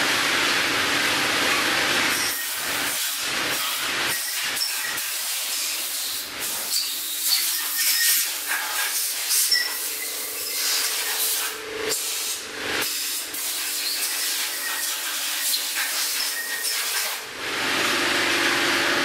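Sunnen HBS-1300 resurfacing machine taking a heavy cut across the deck of a welded Volvo 240 cylinder head: a steady hiss with scattered sharp ticks. The lower rumble fades about two seconds in and returns near the end.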